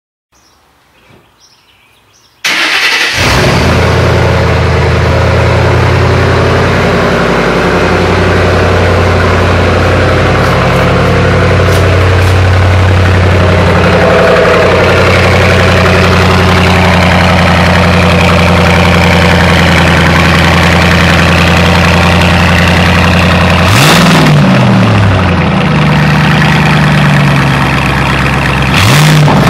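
2008 Ford Mustang GT's 4.6-litre V8 through an SLP Loudmouth axle-back exhaust starting about two seconds in, then idling steadily, with two short revs near the end. The sound is loud and a bit distorted in the garage.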